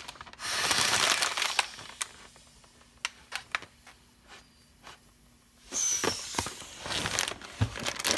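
Inflated metallic foil doll package crinkling as it is handled and pulled at. A loud stretch of crinkling lasts about a second and a half near the start, then a quieter spell with a few light clicks, then more crinkling near the end.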